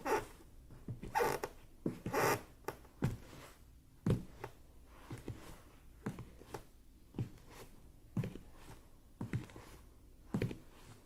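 Footsteps walking at a slow, even pace, about one step a second. The first few steps have a gritty scuff to them, and the later ones are duller thuds.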